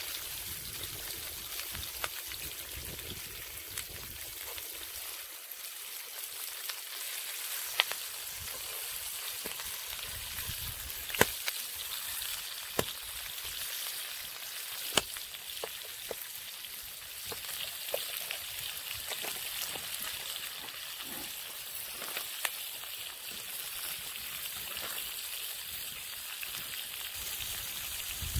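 Shrimp frying in oil in a pan over an open wood campfire: a steady sizzle with scattered sharp pops and crackles every few seconds.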